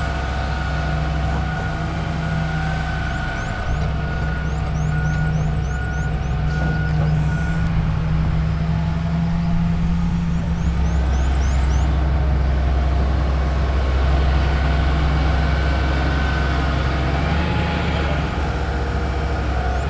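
John Deere tracked hydraulic excavator working: its diesel engine runs steadily under load with a hydraulic whine as the boom and bucket move, getting somewhat louder midway.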